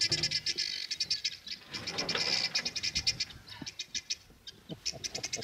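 Birds chattering: a fast run of short high chirps that thins to scattered chirps about halfway through.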